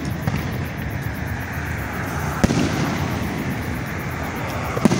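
Aerial fireworks shells bursting, with a sharp bang about halfway through and another near the end, over a steady rumble between the bursts.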